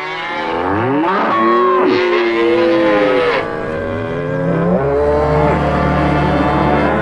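Several cow moos overlapping, long calls that bend up and down in pitch, the sound given to a tipped moo can. From about five seconds in, a steady low drone sounds under them.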